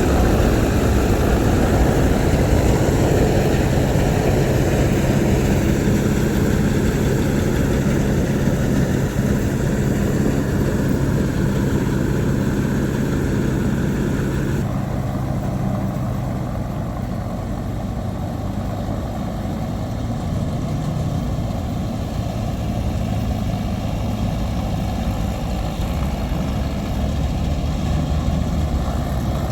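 Heavy diesel engine of farm machinery running steadily. About halfway through, the higher-pitched machine noise drops away abruptly, leaving a lower engine hum.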